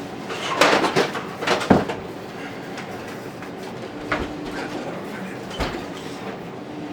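Workshop handling noise: a burst of rustling and clattering in the first two seconds, then two single sharp knocks, over the steady hum of a 3D printer running.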